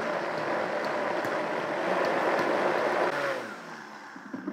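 High-speed blender motor running at speed, churning a thick mousse mix while the tamper is worked down through the lid. About three seconds in the motor is switched off and winds down with a falling pitch, followed by a few light knocks.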